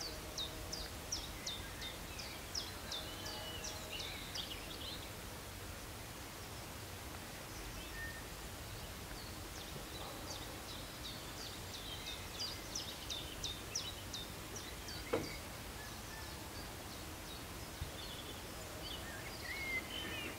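Songbird singing over a steady outdoor hiss: two runs of quick, high, falling notes, about three a second, each lasting roughly four seconds, with the second starting about ten seconds in. A single sharp click about fifteen seconds in.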